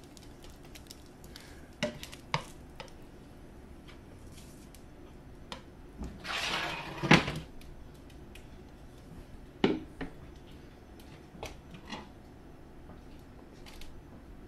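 A metal utensil clinking and scraping against a frying pan and a dinner plate: a few light knocks and taps, with one longer scrape about six seconds in and a sharper knock near the middle.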